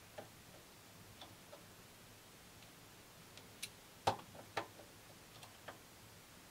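Scattered light clicks and taps of a small hand tool against a hobby metal lathe's toolpost, the loudest two about four seconds in.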